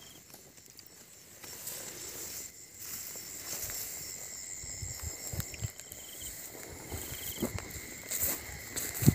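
Night insects chirring steadily, with a couple of short trills. From about three seconds in come soft footsteps through wet grass, growing louder toward the end.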